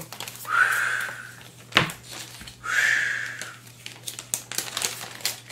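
A person blowing a breathy whoosh twice in imitation of the wind, each blow under a second, with a sharp click between them and plastic bags crinkling as game pieces are packed.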